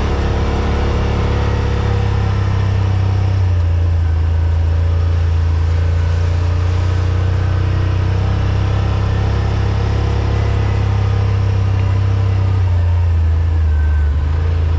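Side-by-side UTV's engine running while driving, a steady low drone whose pitch steps up and down a few times as the throttle changes.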